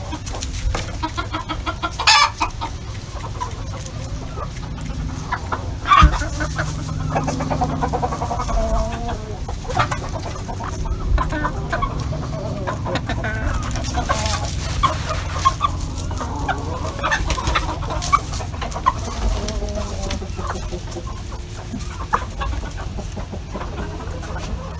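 A backyard flock of chickens clucking and calling on and off, just after being called in. Two sharp, loud sounds stand out, about two and six seconds in, the second the loudest.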